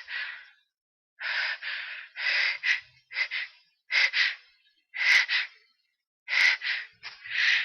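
A person's short, breathy gasping in-breaths, about seven of them with several in quick pairs, roughly one a second: the catching breaths of a sneeze building from cat allergy.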